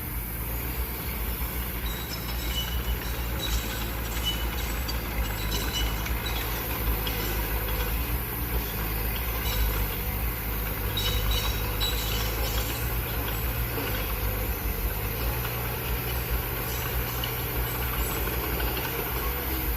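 Diesel engine of a small Mitsubishi BD2F crawler bulldozer running steadily as it works. Short, faint high-pitched squeaks come and go through the first part.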